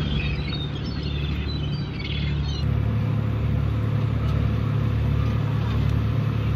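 Steady low engine hum of a docked fishing boat, a little louder from about two and a half seconds in. Gulls call over it during the first two and a half seconds.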